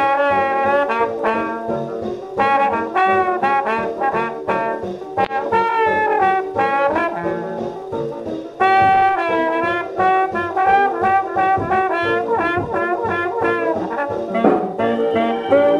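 1941 swing big-band recording with the brass section to the fore, playing a run of short punched chords and held notes.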